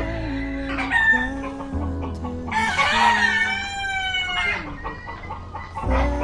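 A rooster crowing, loudest from about two and a half seconds in, over background music with a steady low drone.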